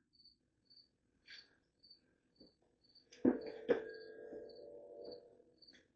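Crickets chirping in the background, a short high chirp about twice a second. Just past halfway, two sharp metal clanks come half a second apart, and the second leaves a ringing tone that fades over about a second and a half.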